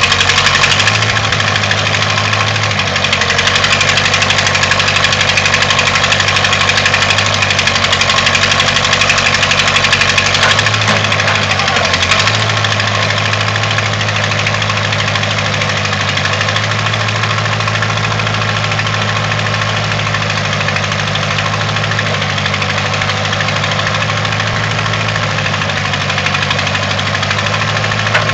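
1958-59 Case 310-B backhoe's engine running at a steady speed, with small shifts in pitch and a little quieter from about twelve seconds in.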